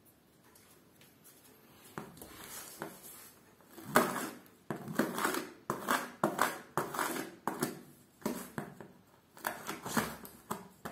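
Scissors cutting through packing tape and plastic wrap on a cardboard carton, then hands pulling the cut tape: a quick run of short scraping and ripping noises starting about four seconds in.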